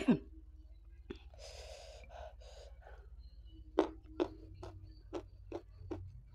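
Mouth sounds of a person eating by hand: a sharp smack at the start, a gasping breath about a second and a half in, then a run of short wet lip smacks and chewing clicks, about two a second.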